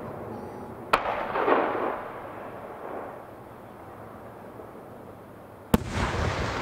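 Aerial firework shells bursting: two sharp bangs about five seconds apart, each followed by a lingering rumble as the sound echoes away.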